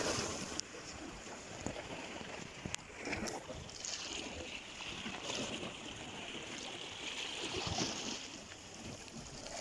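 Small sea waves lapping and splashing against shoreline rocks: a steady watery hiss that swells a little in the middle and then eases.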